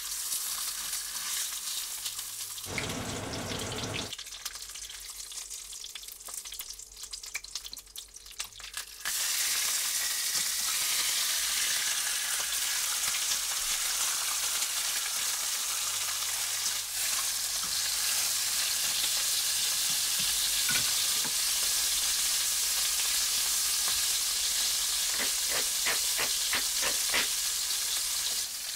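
Beef striploin steaks sizzling as they sear in a hot non-stick frying pan. The sizzle steps up louder about nine seconds in and then holds steady, with fat spitting and crackling near the end.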